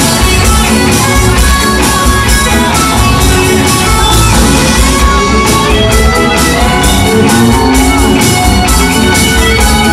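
Live rock band playing loudly on stage: electric guitars, bass guitar and a drum kit with a steady beat.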